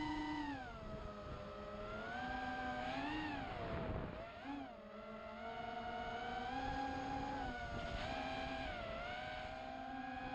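XHover MXP200B FPV racing quadcopter's motors whining, the pitch rising and falling with the throttle. About four seconds in the whine drops low and quieter for a moment, then climbs again.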